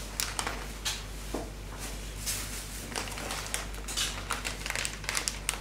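Plastic packaging crinkling in irregular rustles as shio kombu (salted kelp) is shaken from its packet into a plastic cooking bag.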